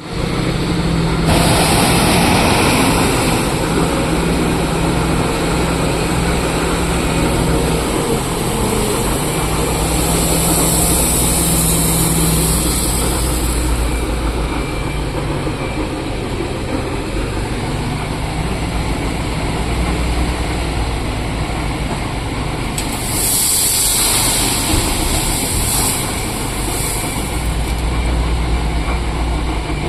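Heavy diesel engines of earth-moving machinery and a truck running steadily, with three stretches of louder hissing noise laid over the engine hum.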